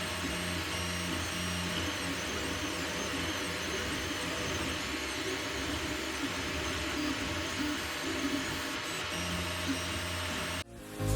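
Anycubic Mega S 3D printer running a print: a steady whir of its fans with motor tones that shift as the axes move. It cuts off suddenly near the end.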